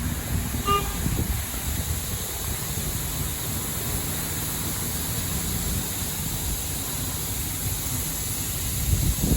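Steady rumble and hiss of a LaserWash 4000 touchless automatic car wash running, with a brief tone about a second in.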